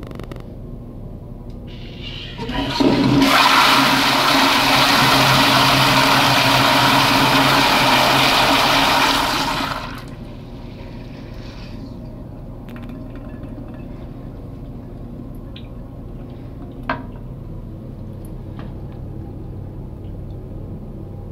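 High-powered Eljer toilet flushing, very loud: a sudden rush of water starts about two and a half seconds in, runs steadily for about seven seconds, then dies away. A single sharp click comes several seconds later.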